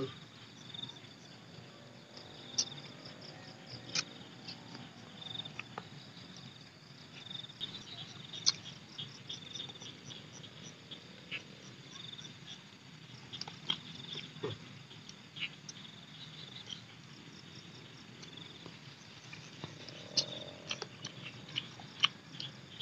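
Close-up eating sounds: chewing and lip-smacking with scattered sharp clicks as small pieces of grilled frog are picked off the bones and eaten by hand. Insects, crickets or similar, chirp steadily behind in a fast pulsing trill.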